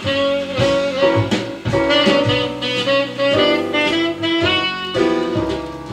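Music played from a vinyl record through a SAEC C-1 phono cartridge whose broken stylus has been repaired, heard over the speakers: a melody of held notes over a moving accompaniment.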